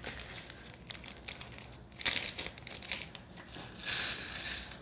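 Small plastic bag of diamond painting drills crinkling as it is handled. It gives a run of small crackles, with louder crinkling bursts about two seconds in and again near the end.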